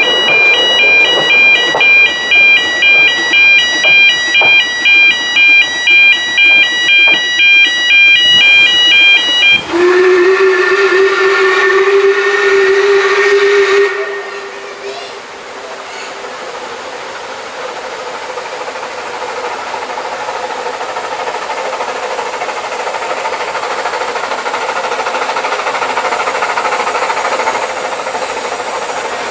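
Level crossing warning alarm sounding in a pulsing tone about twice a second. It is followed by a narrow-gauge steam locomotive's whistle, which rises a little in pitch and lasts about four seconds. Then comes a steady hissing rumble of an approaching steam train, slowly growing louder.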